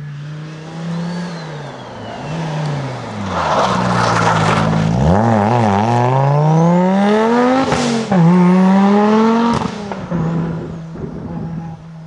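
Rally car engine under hard acceleration, revs climbing steeply through the gears with sudden drops at each shift. There is a sharp crack at a gear change about eight seconds in. The engine eases to a steadier note near the end.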